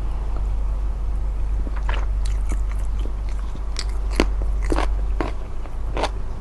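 Close-miked eating: chewing with wet clicks and crisp crunches that come thicker from about two seconds in, over a steady low hum.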